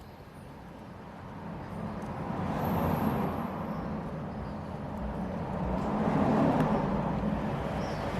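Traffic noise from a passing road vehicle: a rushing sound that swells up over a couple of seconds and rises again later.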